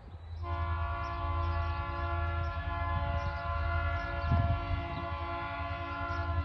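TasRail diesel locomotive's air horn, out of sight, sounding one long chord blast that starts about half a second in and is held steady, over a low rumble. It is the warning sounded by a coal train as it approaches a road crossing.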